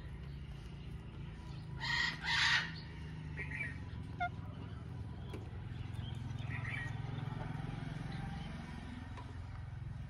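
A parakeet gives two short, harsh squawks in quick succession about two seconds in, followed by a few faint chirps, over a steady low hum in the background.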